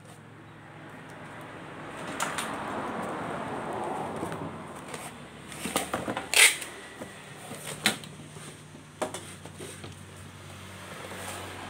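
Packing tape pulled off a handheld tape dispenser across a cardboard box with a long rough tearing noise, then a sharp, loud snap as the tape is cut, followed by a few knocks of the box being handled.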